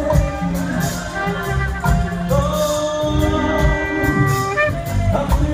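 Church worship music with singing over a steady drumbeat and heavy bass, played amplified through loudspeakers on a parade float, with long held sung notes.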